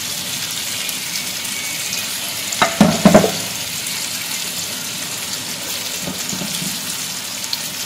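Sliced onions and green chillies sizzling steadily in a little oil in a frying pan over a very low flame. About three seconds in, a short clatter of knocks as tongs stir the onions against the pan.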